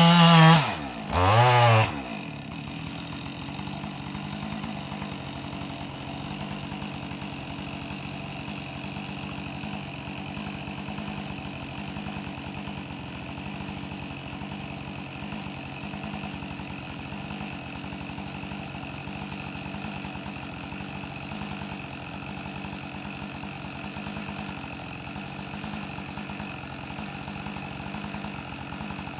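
Two-stroke chainsaw coming off full cutting revs, blipped once briefly about a second in, then idling steadily.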